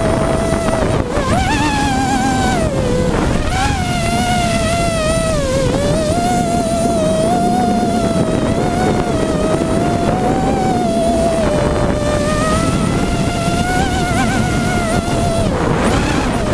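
Hexacopter's six brushless motors and propellers whining, the pitch wavering up and down as the throttle changes, over a steady rush of air on the onboard camera.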